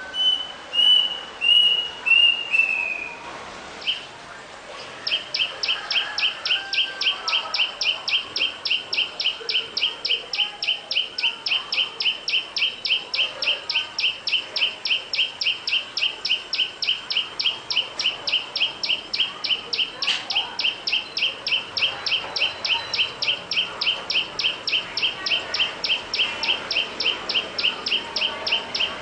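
A few short chirps falling in pitch, then a long, steady run of sharp, evenly spaced chirps, several a second, from a calling bird or insect.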